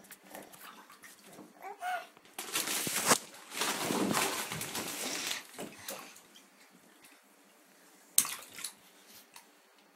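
Bath water splashing as a baby plays in the tub, in two noisy stretches in the first half. Just before them comes a brief baby squeal, and a sharp knock sounds near the end.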